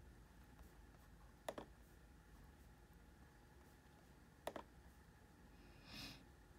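Two sharp clicks on a laptop, about three seconds apart, each a quick pair of strokes, against near silence; a brief soft hiss follows near the end.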